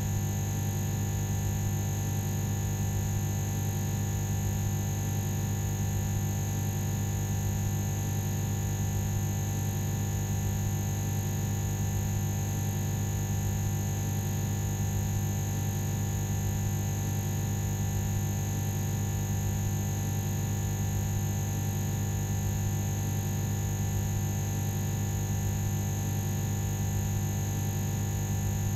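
Electrical power hum: a steady, low buzzing drone with a faint, thin high whine above it.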